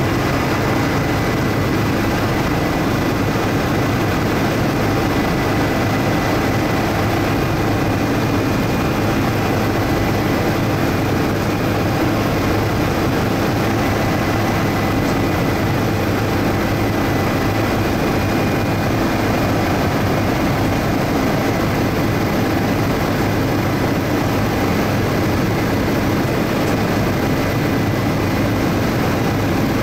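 Bell 407 helicopter in steady cruise, heard from inside the cabin: an even drone of the rotor and its single turboshaft engine, with a thin steady high whine over it.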